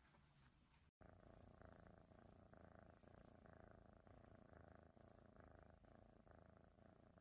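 Domestic cat purring steadily and faintly, starting after a brief silent break about a second in.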